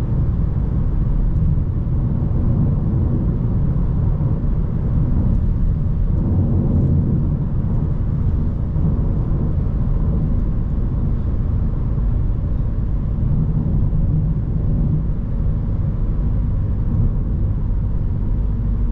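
Hyundai i30 N's 2.0-litre turbocharged four-cylinder engine and tyres, driving at an even pace: a steady engine drone with road rumble, with no sharp revving or gear changes.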